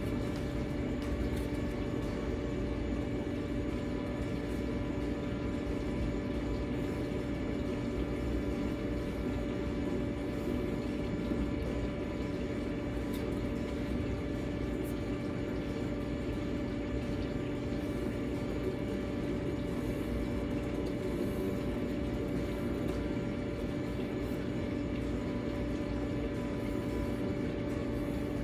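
A steady mechanical hum with a constant low drone and an even hiss underneath, unchanging throughout.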